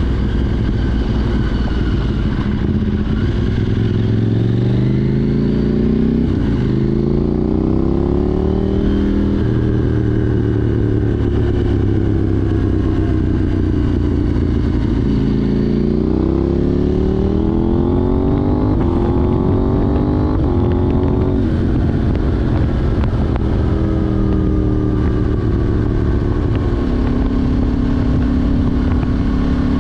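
KTM 790 Duke's parallel-twin engine through an Arrow Race Tech exhaust with de-cat pipe, under way: twice it pulls up through the revs, rising in pitch in steps as it shifts up through the gears, with steady cruising between the pulls and near the end.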